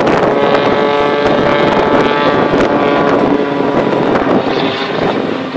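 Aerobatic biplane's propeller engine passing overhead, its droning pitch sliding down as it goes by, with wind buffeting the microphone.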